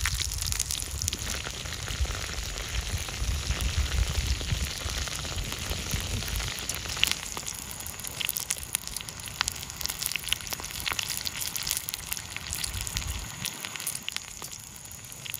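Rhinoceros beetles frying in hot oil in a pan over a wood fire: a steady sizzle with scattered crackles and pops. A low rumble underneath stops near the end.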